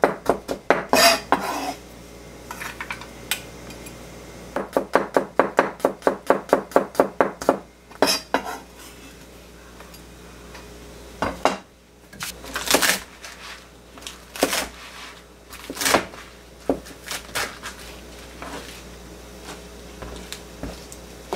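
Kitchen knife chopping garlic on a plastic cutting board: quick runs of knocks, about six or seven a second, with short pauses between the runs. In the second half the chopping gives way to a few separate, louder knocks and clatter on the board.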